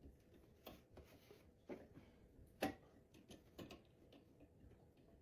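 Faint, irregular clicks and ticks from an Allen wrench being forced around in the hex socket under a jammed garbage disposal. The disposal is really hard to spin.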